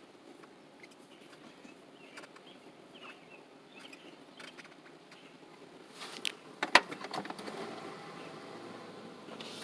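Faint scattered clicks and light knocks, then a quick cluster of sharp clanks and clicks about six to seven seconds in, like tools or metal parts being handled.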